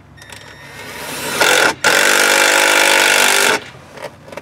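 Power drill/driver driving a screw: the motor speeds up over the first second or so, stops for a moment, then runs steadily for about two seconds before it stops.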